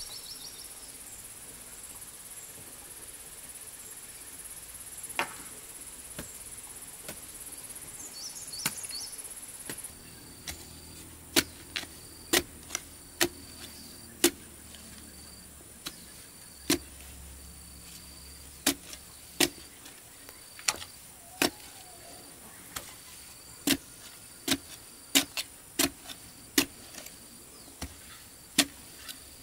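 Long-handled digging tool driven down into hard-packed soil, giving sharp, irregular strikes about one or two a second that begin about ten seconds in. Before that, a steady high insect buzz with a couple of light knocks, and a short high chirp repeats between the later strikes.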